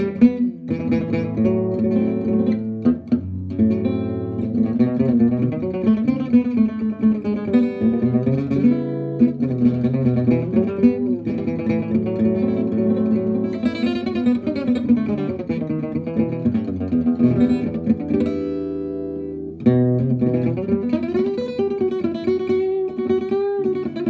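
Marco La Manna gypsy-jazz-style acoustic guitar amplified through an Antonio Surdo pickup and a Laney LA35C acoustic amp, played as strummed chords and melodic single-note lines. About three-quarters of the way through, a chord is left ringing and fades before the playing resumes.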